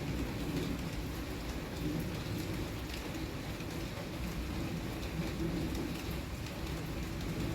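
Steady rain falling, an even noise heaviest at the low end, with a few faint scattered ticks.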